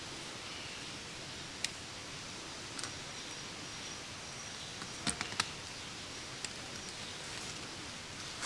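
Steady background hiss with a faint high thin tone, broken by a handful of sharp clicks or taps, with a quick cluster of them about five seconds in.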